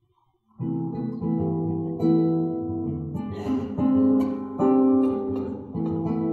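After a brief hush, a classical guitar and a cello start playing a choro together about half a second in, with plucked guitar notes under held melody notes.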